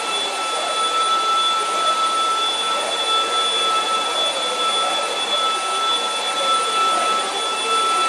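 Two cordless stick vacuum cleaners, a Dibea F20 Max and a Prosenic P8 Max, running together at maximum power as they are pushed over carpet. Their motors give a steady high whine of several fixed pitches over a rush of sucked air.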